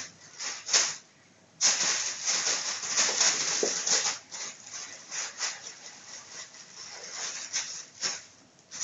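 Plastic bag crinkling and rustling as a kitten plays with it: sharp rustles, a brief pause about a second in, a stretch of continuous crinkling, then scattered rustles.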